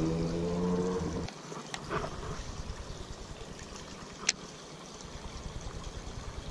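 Baitcasting reel being cranked, a faint run of light clicks, over quiet trickling water. A low droning hum with a slowly rising pitch cuts off suddenly about a second in.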